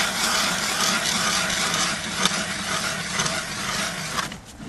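Small vehicle engine running steadily under a loud rushing noise while riding, which drops away suddenly a little after four seconds in.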